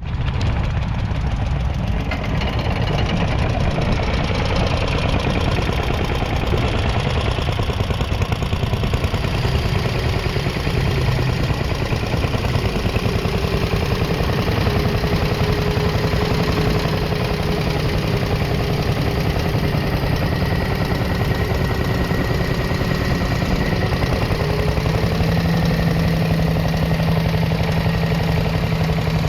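1941 Trusty pedestrian plough tractor's 600 cc single-cylinder JAP petrol engine running steadily, with a fast, even beat of firing strokes.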